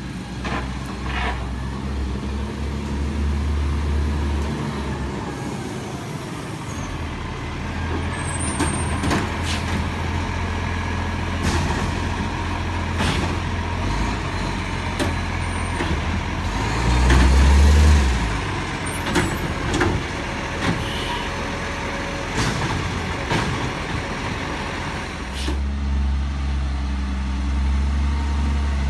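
Diesel engine of an Iveco side-loader garbage truck running as the truck moves along the street. There is a louder swell of the engine about two-thirds of the way through, short sharp air hisses typical of air brakes, and a few knocks.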